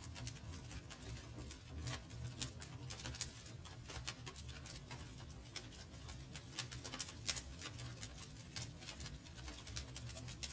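Fire crackling: faint, irregular small pops and ticks over a low rumble.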